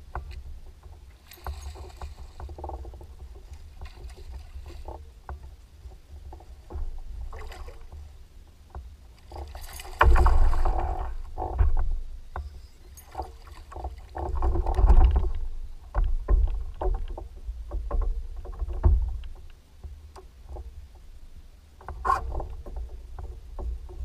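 Handling noise aboard a fishing kayak: scattered clicks and knocks from rod, reel and hull over a steady low rumble. Louder noisy bursts come about ten and fifteen seconds in.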